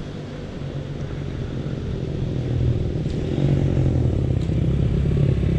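Dirt bike engines: one idling close by while another dirt bike approaches, its engine growing steadily louder.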